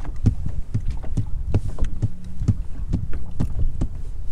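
Regular thumps, about three a second, of a foot stomping on the floor of a fishing boat, a noise made to draw white bass (sand bass) under the boat and keep them active. A low rumble runs underneath.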